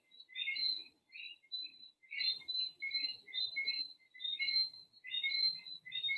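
Birds chirping: a continuous, busy run of short, high chirps with no break.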